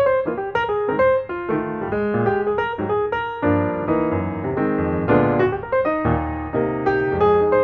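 Piano music: a flowing run of notes, several struck each second.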